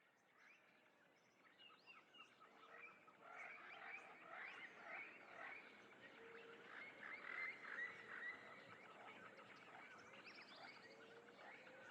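Faint wild-animal ambience fading in over the first few seconds: a dense chorus of many short chirps and calls, with a lower repeated call underneath.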